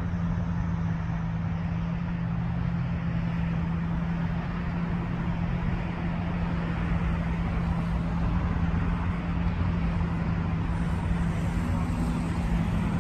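Steady road-traffic noise with a constant low engine hum underneath.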